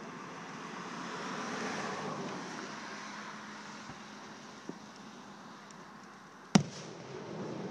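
Fireworks display: a rushing noise swells and fades over the first few seconds, then a single sharp, loud firework bang comes near the end.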